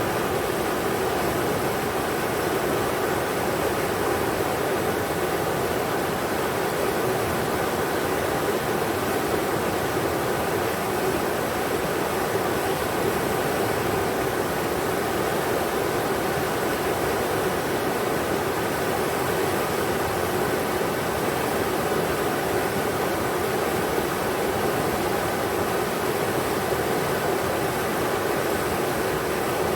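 River water rushing over rocks, a steady even roar of flowing water.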